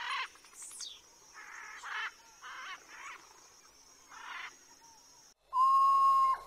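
Harsh, cawing bird calls, about half a dozen over the first five seconds, over a thin steady high tone. They cut off suddenly, and a long, steady whistle starts about five and a half seconds in.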